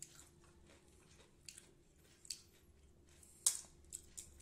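A crisp, hollow fried phuchka (pani puri) shell being cracked open with the thumbs: a few faint crackles, then a sharp crack about three and a half seconds in and a smaller one near the end.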